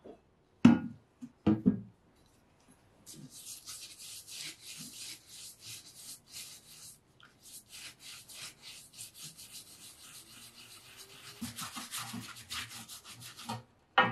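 A rusty iron mortising axe head knocks a couple of times as it is set into an enamel tray of soapy water. Then a stiff brush scrubs it back and forth in the water, with a short pause midway.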